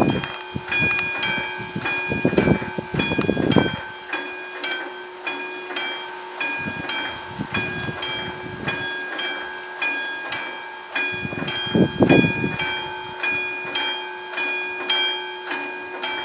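Classic electromechanical level-crossing bell of a Czech VÚD warning signal ringing steadily at about two and a half strokes a second, showing that the crossing is still in its warning state. Twice a low rumble swells up under the bell, about three seconds in and again about twelve seconds in.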